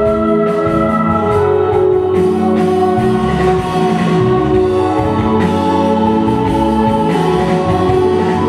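Performance music of slow, sustained chords held for a second or two each, with an organ-like or choir-like sound.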